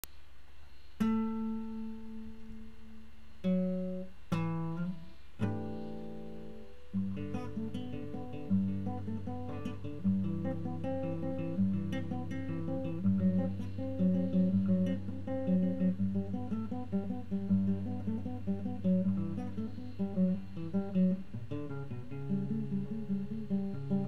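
Background music on acoustic guitar: a few single ringing chords at first, then from about seven seconds a steady flow of picked notes over a bass line.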